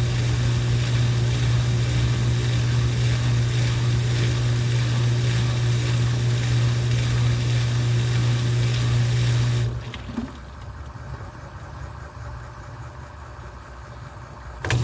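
Midea 13 kg washing machine spinning loudly, a steady hum with a noisy rattle over it, the excessive spin-cycle noise the owner is complaining about. About ten seconds in the sound drops suddenly to a much quieter level for about five seconds, then comes back just as suddenly.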